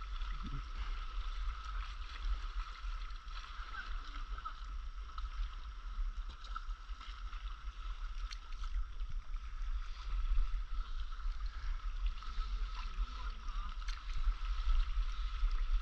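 Sea water lapping and splashing around paddleboards as paddles dip, with small ticks and splashes through it, over a steady low rumble and a faint steady whine.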